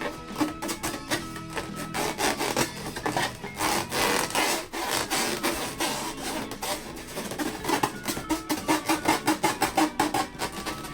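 Inflated rubber balloons rubbed and squeezed by hand: a continuous run of squeaky rubbing strokes that quickens to about five strokes a second near the end.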